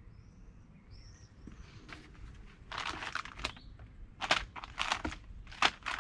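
Plastic packaging crinkling in irregular bursts as a bagged cable is handled and opened, starting about three seconds in.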